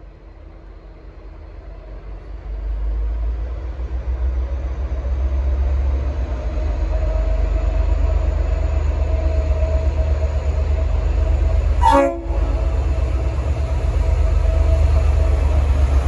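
Diesel locomotive engine rumble growing louder as the V/Line N class locomotive moves off and draws closer, with a faint high whine above it. About twelve seconds in, a brief sharp blast, taken here for a short toot of its Leslie RS5T horn.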